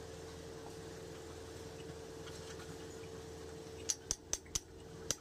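A quick run of sharp metallic clicks, about five in the last second and a half, as a steel bar knocks against the truck's front wheel hub cap while it is worked loose. A faint steady hum lies underneath.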